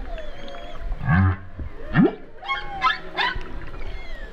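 Humpback whale calls: a series of separate cries, starting with low sweeps rising in pitch about one and two seconds in, followed by higher wavering, whistle-like cries.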